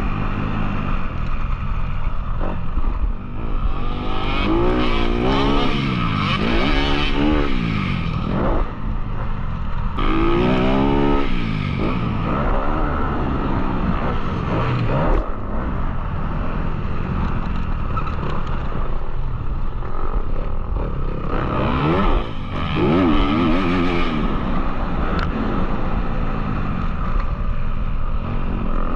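Motocross dirt bike engine under riding load, its revs repeatedly climbing and dropping as the rider accelerates and shifts, with the sharpest runs of revs about four to eight seconds in, about ten seconds in, and again about twenty-two seconds in.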